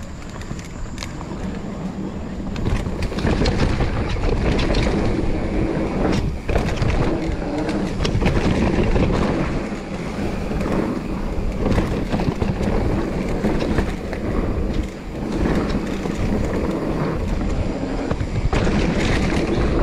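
Mountain bike rolling fast down a dirt singletrack: tyres running over packed dirt, with rattles and knocks from the bike over bumps. It gets louder about three seconds in as the bike picks up speed.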